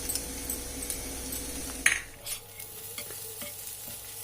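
Egg kothu parotta sizzling on a hot tawa while being stirred and tossed with a metal spatula. Light scrapes and clicks run over a steady hiss, with one louder scrape about two seconds in.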